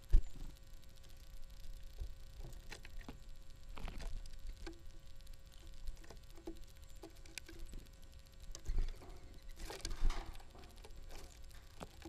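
Red-bellied woodpecker pecking and picking through seed on a wooden platform feeder close to the microphone: irregular taps and clicks, with a sharp knock just at the start and a louder rustling burst about ten seconds in.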